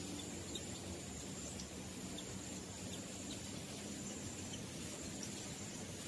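Steady outdoor nature ambience: a continuous high insect note over an even hiss, with faint short high chirps about once a second.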